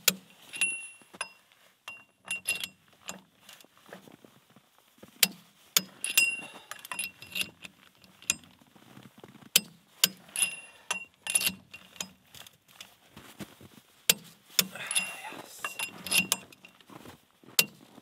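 Ratchet wrench and socket tightening a wheel spacer onto a tractor's front hub: irregular metallic clicks and clinks in scattered groups, some with a short metallic ring.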